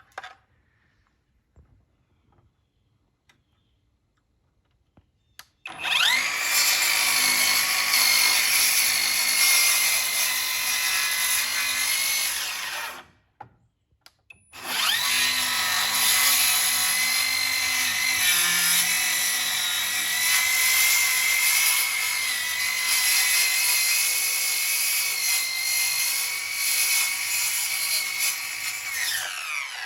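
Bauer cordless circular saw cutting. It starts about six seconds in with a rising whine and runs, stops briefly about halfway, then starts again and runs until it winds down near the end. The whine sags for a moment under load partway through the second run.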